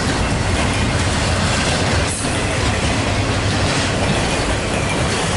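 Freight train rolling past close by: a steady, loud rumble of cars and wheels on the rails.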